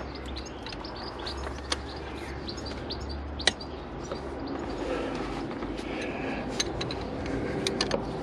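Small birds chirping in the background, with a few sharp metallic clicks and knocks from a wrench on the crank pulley bolts. The loudest click comes about halfway through, and a quick cluster comes near the end.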